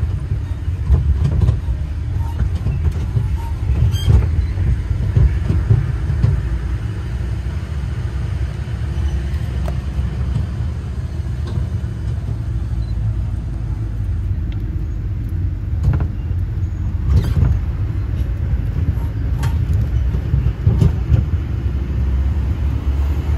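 Tourist road train driving along, heard from on board: a steady low rumble of its motor and wheels with occasional short knocks.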